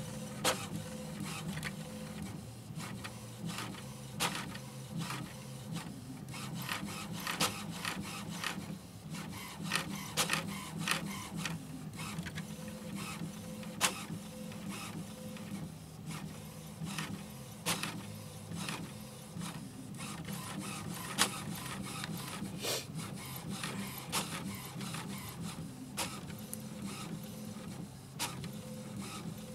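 HP Envy Photo 7155 inkjet printer running its print-cartridge alignment after new ink cartridges are installed, printing the alignment page. A steady motor hum runs with frequent irregular clicks and ticks from the print carriage and paper feed.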